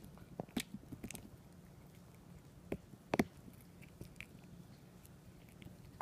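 A tiny Yorkshire terrier chewing: a string of irregular sharp clicks from its teeth, loudest in a cluster about three seconds in.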